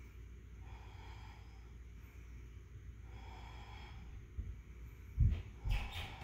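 A person's slow, audible breathing through the nose while holding a yoga boat pose, soft breaths recurring every second or two. From about five seconds in come several loud low thumps and a louder breath.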